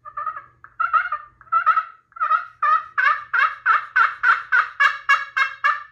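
Friction pot call played with an Osage orange wood striker: a run of about seventeen raspy turkey yelps, spaced out at first, then quickening and growing louder. The sound is deep and raspy.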